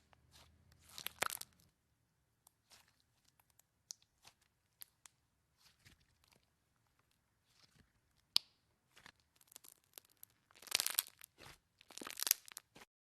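Slime being squeezed and worked by hand: scattered sharp clicks and pops, with louder crackling bursts about a second in and twice near the end.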